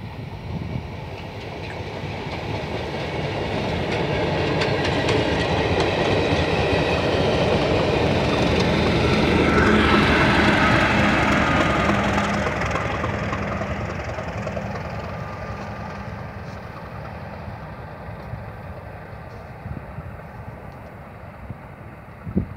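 Class 37 diesel locomotive and its train of coaches passing: the engine note and the wheels clicking over rail joints swell to a peak about ten seconds in, then fade as the train draws away.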